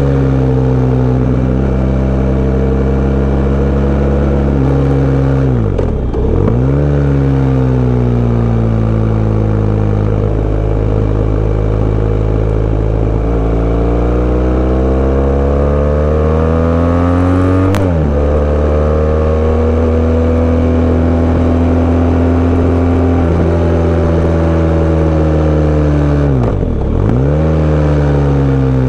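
Sport bike engine running under way, its pitch rising and falling slowly with engine speed. The revs dip sharply and recover twice, about six seconds in and near the end, and the pitch jumps suddenly about eighteen seconds in.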